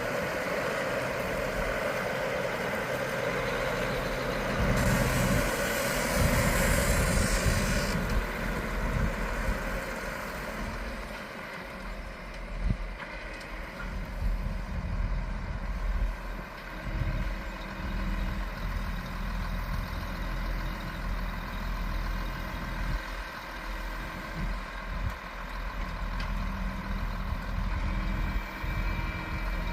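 Heavy farm machinery engine running steadily, louder for the first several seconds and then easing to a lower, uneven rumble.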